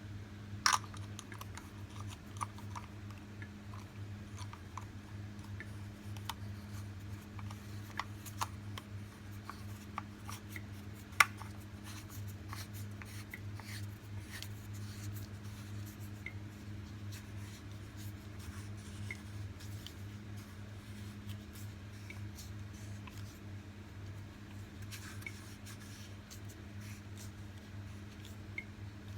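Scattered light clicks and taps at irregular intervals, the sharpest about a second in and about eleven seconds in, over a steady low hum.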